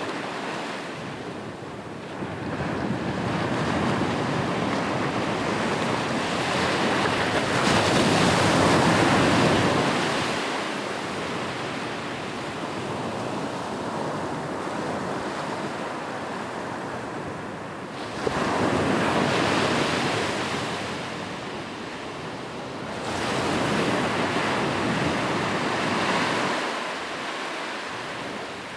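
Ocean waves breaking and washing on the shore: a continuous rush of surf that swells three times, with the sharpest break about eighteen seconds in. Some wind is mixed in.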